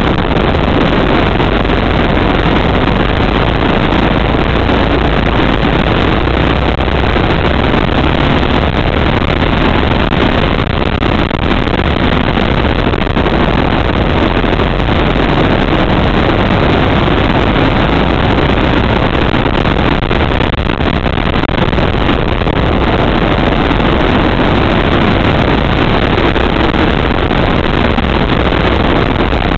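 Go-kart engine running at racing speed, heard from onboard the kart: loud and steady, a dense, noisy sound with no clear pitch.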